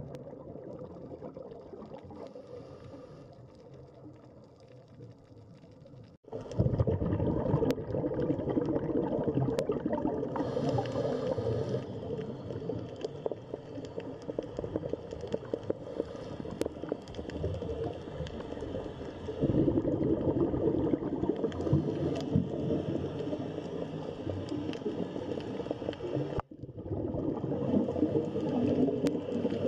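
Underwater ambience picked up by a dive camera: a dense, crackling wash of water noise. It is quieter for the first six seconds, jumps louder at a sudden cut, and breaks briefly again near the end.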